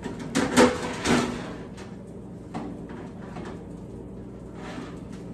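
Metal clanking and scraping as a wire air-fry basket is slid out of a countertop Cuisinart air fryer oven. Several sharp clanks come in the first second or so, then a lighter knock and a soft scrape.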